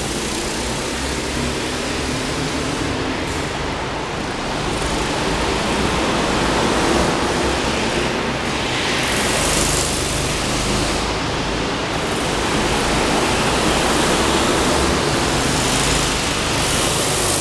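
Go-kart engines running as karts lap an indoor track, a continuous noisy drone heard inside a large warehouse hall, swelling now and then as a kart comes nearer.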